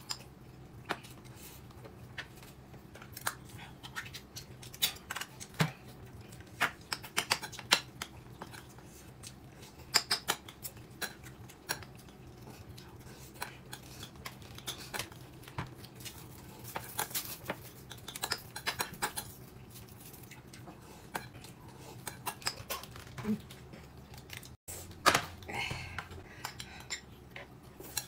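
Eating utensils clicking and scraping against bowls and plates during a meal: scattered light clicks at an uneven pace, with a louder clatter near the end.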